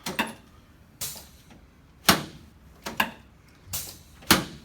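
A series of about six sharp knocks and clacks, roughly one a second, from a chiropractic adjustment table and the handling on it as an adjustment is set up.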